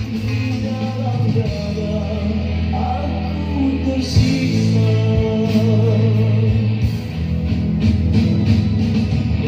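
Rock music with singing played through the VINNFIER Hyperbar 500BTR soundbar and its subwoofer, with a strong, steady bass.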